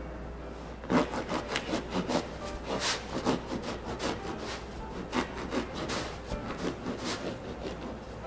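Bread knife sawing through the hard crust of a round country loaf in quick back-and-forth strokes, about three a second, starting about a second in, the crust rasping against the blade over a wooden board.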